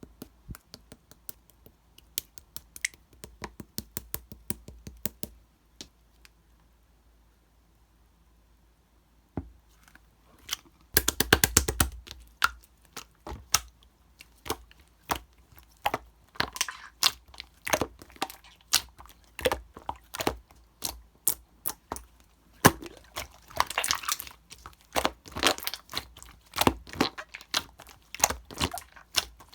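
Slime being squished, pressed and poked by hand, making a quick series of sharp clicks and crackles. The clicks are sparse at first, stop for a few seconds, then come back as a dense crackling run that keeps going.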